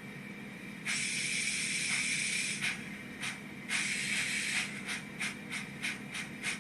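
Sound-decoder steam effects from Rapido's model of the locomotive Lion running on a rolling road, over a faint steady motor hum. A long steam hiss starts about a second in and a second one comes near the middle; after that, steady chuffs quicken to about three beats a second as the engine pulls away.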